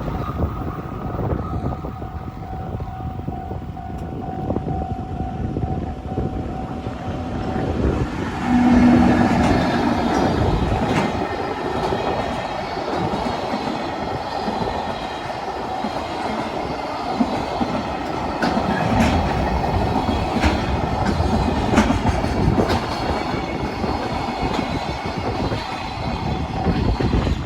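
Japanese level-crossing warning bell ringing its steady 'kan kan kan' while a train passes. A short train horn blast comes about nine seconds in, followed by the repeated clicking of the wheels over rail joints as the train goes by.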